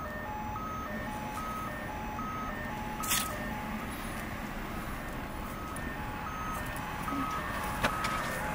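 Electronic two-tone beeping, short high and low beeps alternating evenly at nearly three a second, over steady background noise, with a sharp click about three seconds in and another near the end.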